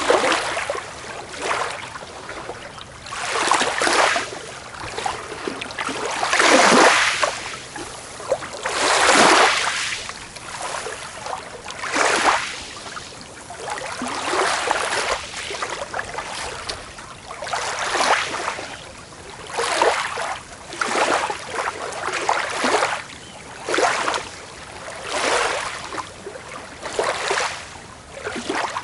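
Small waves breaking and washing up a beach, each swell of surf rising and falling away every one to three seconds.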